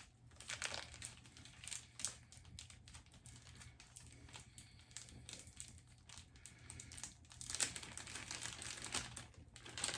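Product packaging crinkling and rustling as it is handled and opened by hand, with scattered small clicks; the handling grows louder and busier a little past the middle.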